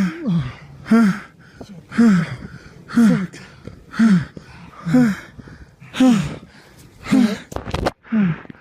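A person gasping for breath in rapid, voiced pants, about one a second, each with a short falling moan: the hard breathing of someone shaken after an avalanche blast. A brief rustling burst comes near the end.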